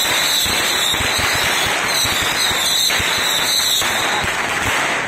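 A string of firecrackers going off in a rapid, continuous crackle of pops, with a high wavering whistle over most of it, cutting off suddenly near the end.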